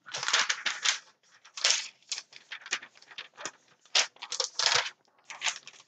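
Sheet of paper rustling and crinkling as it is handled, in a quick run of short rustles that is densest at the start and then comes in scattered bursts.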